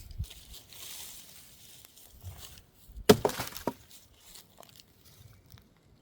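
Rustling handling noise, then one sharp clatter with a brief ring about three seconds in and a few lighter knocks after it, as a hard object is knocked or set down.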